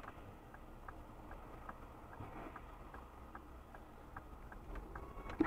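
Faint, even ticking, about two and a half ticks a second, heard inside a car's cabin over a low hum: the rhythm of a turn-signal relay.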